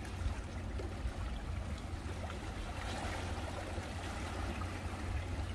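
Seawater lapping and trickling among shoreline rocks, an even watery wash over a steady low rumble.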